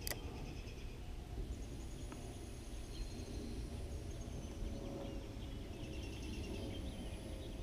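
Open-air lake ambience: a steady low rumble with faint high bird chirps over it.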